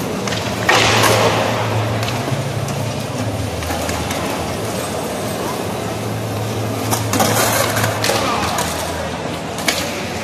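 Skateboard wheels rolling on a smooth hard plaza floor, a steady low rumble, broken by a few sharp board clacks: one about a second in and more near the end. Voices of people nearby chatter underneath.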